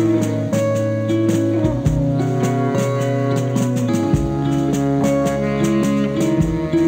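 Instrumental passage of a rock band's song: guitar over a bass line and a steady drum beat, with the bass changing note every couple of seconds.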